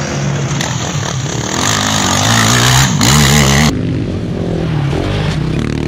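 Quad bike engine revving hard as it accelerates past, its pitch climbing and dropping with each gear change and throttle blip. About two-thirds of the way through it cuts abruptly to a duller, more distant mix of motocross engines.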